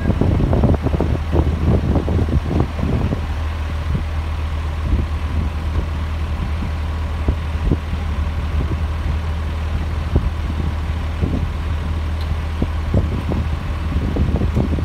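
Heavy diesel engines of construction machinery running at idle, a steady low rumble, with irregular short knocks and clanks that are busiest in the first few seconds.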